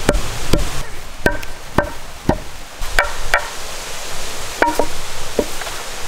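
Long wooden pestle pounding black peppercorns in a stone mortar: about nine dull knocks, roughly two a second, some with a short ring. The pounding stops near the end.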